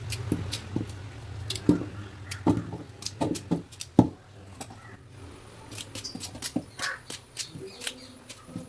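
Knife cutting peeled tapioca (cassava) into small chunks by hand, with irregular sharp clicks and taps as the pieces drop into a steel bowl. The taps come thicker in the first half and thin out later.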